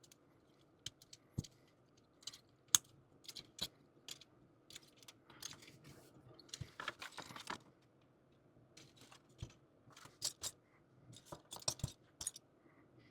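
Hard plastic model-kit parts clicking and knocking together as they are handled, snapped and pried apart. The clicks come scattered, with a stretch of rustling handling in the middle and a quick cluster of clicks near the end.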